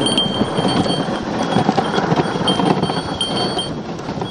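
Dog sled gliding over hard, icy snow: the runners scrape and rattle steadily with a constant run of small knocks, and a thin high ringing comes and goes over the top.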